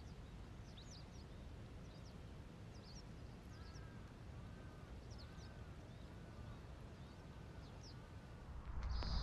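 Wild birds calling over a low steady background: scattered thin, high chirps throughout, and a bird call repeated six times in an even series in the middle. A louder rush of noise comes in near the end.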